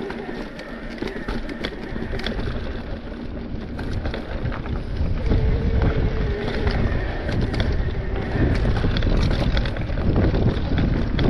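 Mountain bike rolling fast down a rocky gravel singletrack: tyres crunching over loose stones, with frequent clicks and rattles from the bike. Wind rumbles on the camera microphone and grows louder about four seconds in.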